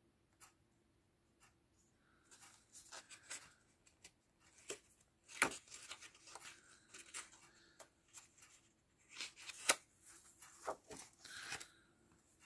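Sheets of patterned paper from a paper pad being lifted and turned over by hand: faint rustling with scattered crisp paper snaps, the two sharpest at about five and a half and nearly ten seconds in.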